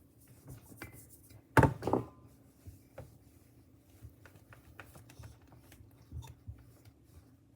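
Kitchen things being handled: two sharp knocks close together about one and a half seconds in, then light scattered clicks and rustling.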